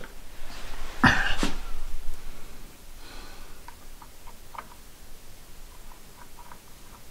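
Two loud, sudden noises half a second apart about a second in, then faint, irregular small metallic clicks as a brass threaded rod is turned by hand into the slider block of a lathe DRO scale.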